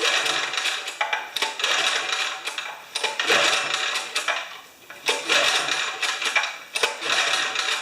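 Homelite 3000-watt generator's recoil starter pulled about five times in a row, each pull a rasping whir of the rope as the engine turns over without catching: it is not getting a spark.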